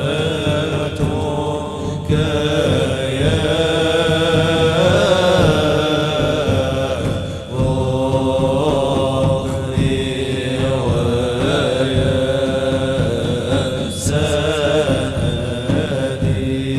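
Islamic devotional chanting by a group of voices, sustained and melodic, dipping briefly about halfway through before carrying on.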